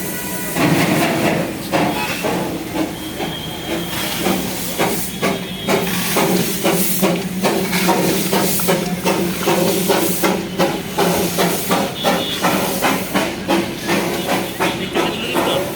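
Small steam locomotive starting off: a burst of steam hiss about half a second in, then steady chuffing that gradually quickens as the engine gets under way.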